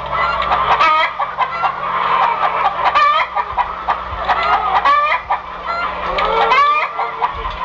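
A chorus of farmyard fowl, many birds clucking and calling over one another, the calls rising and falling in pitch.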